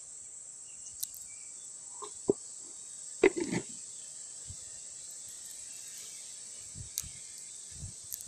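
Steady high-pitched chirring of insects, with a few short knocks and rustles from handling fishing gear near the microphone, the loudest a brief knock about three seconds in.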